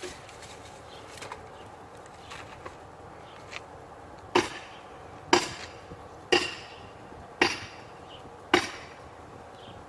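Heavy hand tool striking wood: a few light knocks, then five hard blows about a second apart, each with a short ring.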